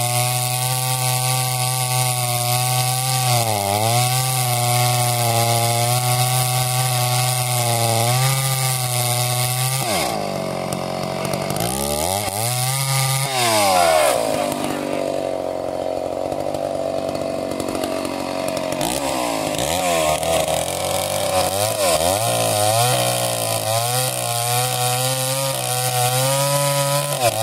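Stihl chainsaw cutting through a large log round at full throttle, held steady with two brief dips. About ten seconds in the engine drops off. It then revs up and down repeatedly as a new cut is started.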